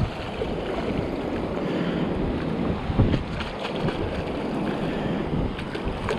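Wind buffeting the microphone over small waves washing up on the beach, with one louder buffet about three seconds in.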